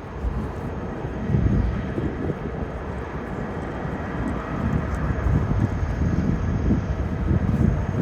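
Jet engines of an Airbus A350-900 (Rolls-Royce Trent XWB) rumbling steadily, with gusts of wind buffeting the microphone.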